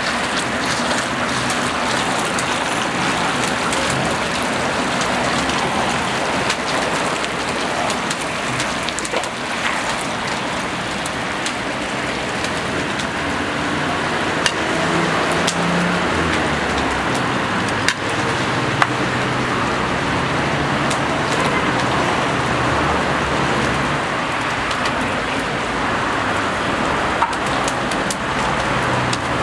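Food frying in oil in a large pilaf cauldron: a steady sizzle with scattered crackles and pops.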